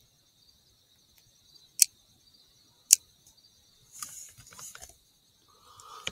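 Crickets trilling steadily. Two sharp clicks come about a second apart, and rustling with small knocks from handling the rifle follows in the last two seconds.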